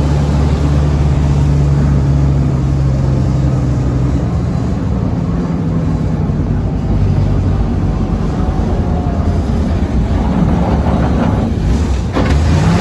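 WWII DUKW amphibious truck's GMC straight-six engine running under way. The engine note shifts a few times and rises near the end.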